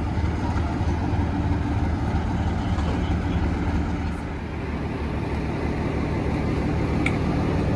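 Diesel locomotive engine running steadily at a low, even pitch.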